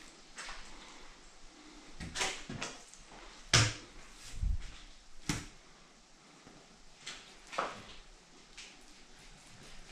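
A few sharp knocks and taps, the loudest about three and a half seconds in, from a fillet knife and northern pike fillets being handled and cut on a table top.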